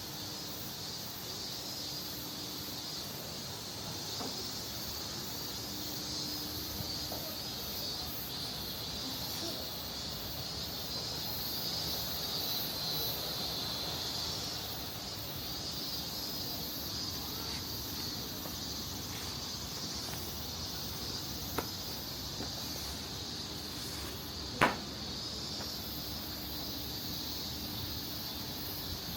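Steady high-pitched chorus of insects, with a faint pulsing layer above it. Two short sharp clicks cut through near the end, the louder one about 25 seconds in.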